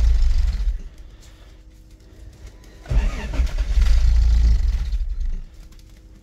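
Starter cranking the carbureted four-cylinder of a 1983 Toyota Tercel wagon in a sub-zero cold start, in two goes: the first stops about a second in, the second runs from about three seconds to five and a half. The engine does not catch and keep running.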